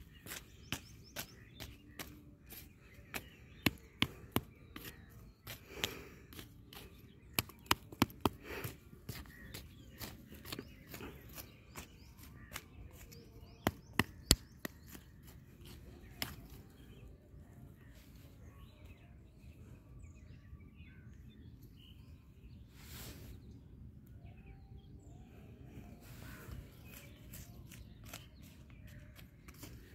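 Short-handled hand hoe chopping and scraping through dry, cracked, clumpy soil while weeding: irregular sharp strikes and scrapes, frequent for the first half and then sparse and faint after about seventeen seconds.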